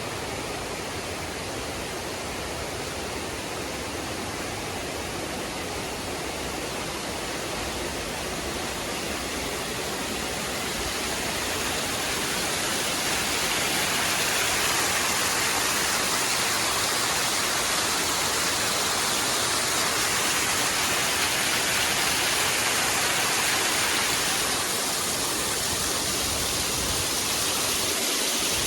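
Rushing water of a mountain gorge, a steady rush that grows louder about halfway through and eases slightly near the end.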